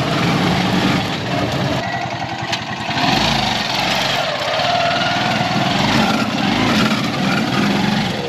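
Small motorcycle engine of a three-wheeled mototaxi running steadily under way, heard from the passenger seat behind it.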